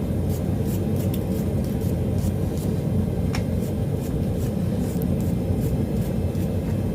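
Gas forge burner running at full blast with a steady low rumble while a billet is brought up to forge-welding heat. Faint crackles sound over it now and then.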